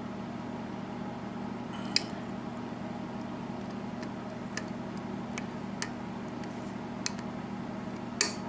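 Small, sharp metallic clicks of a lock pick working the pin stacks of a Euro cylinder lock under bottom-of-keyway tension, a handful of them spaced irregularly, the loudest about two seconds in and near the end, over a steady low hum.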